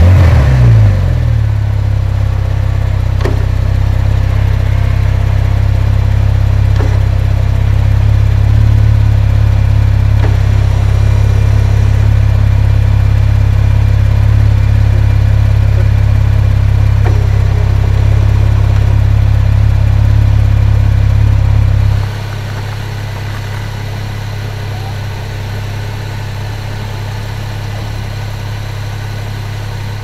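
Techart GT Street R's twin-turbo flat-six, just started: the revs fall from the start-up flare in the first second and settle into a steady idle. About 22 seconds in the sound drops abruptly to a quieter level, losing much of its deep low end.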